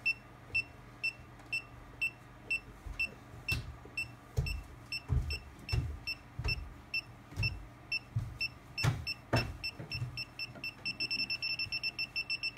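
Circuit breaker finder receiver wand beeping about twice a second as it scans across the breakers, with a few soft knocks. Near the end the beeps speed up and grow louder: the wand has picked up the transmitter's signal on the right breaker.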